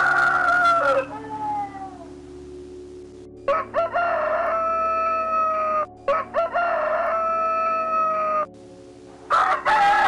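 Rooster crowing: a long crow tails off about a second in, two more long crows follow back to back in the middle, and another begins near the end.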